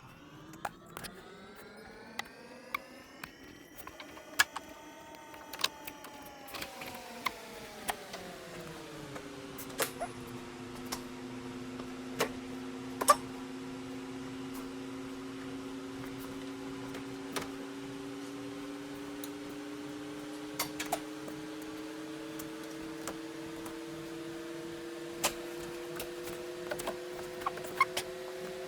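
Scattered sharp clicks and snaps of a door card being worked off a 1995 Suzuki Carry's door, over a steady hum. The hum rises then falls in pitch over the first ten seconds or so, then holds and creeps slowly upward.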